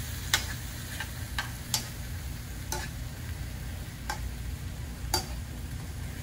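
Cubes of steak sizzling in a skillet while metal tongs turn them, the tongs clicking sharply against the pan about seven times at uneven intervals.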